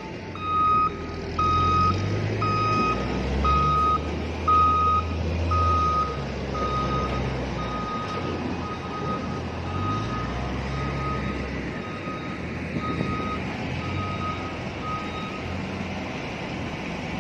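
A heavy diesel vehicle's reversing alarm beeping at an even pace, roughly once a second, fading and stopping near the end, over the low rumble of its engine.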